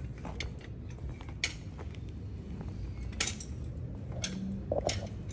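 A few sharp metal clinks, three louder ones spaced about a second and a half apart, from wheel hardware and tools being handled on a golf cart.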